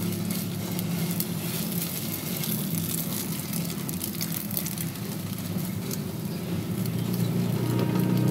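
Egg-coated bread frying in oil in a nonstick pan: a steady crackling sizzle, with a few light clicks as a fork presses and nudges it. A steady low hum runs underneath.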